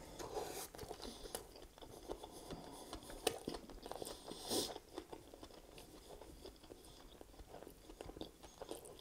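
Chewing a mouthful of Big Mac: scattered soft mouth clicks and crunches, with a few louder snaps about three and four and a half seconds in, growing quieter in the second half.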